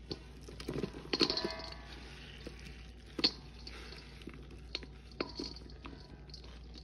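Dried Lime Ajax cleanser paste crumbling and crunching as gloved hands squeeze and break it up in a stainless steel bowl. Soft crackling with scattered sharp clicks, the loudest about three seconds in, and a short ringing squeak about a second in.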